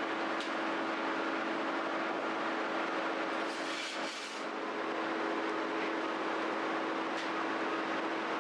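Steady mechanical hum with one constant low tone over a broad rushing noise, and a brief hiss about four seconds in.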